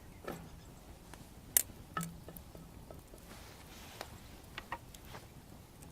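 Wood fire crackling: irregular sharp pops and snaps over a low steady background, the loudest about a second and a half in, with a small cluster of quieter pops near the end.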